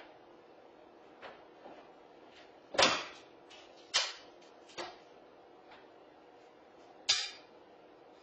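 Wooden door trim cracking and splintering as a German Shepherd chews and tears at it: a few sharp cracks at irregular intervals, loudest about three seconds in and again near the end, with fainter ticks between.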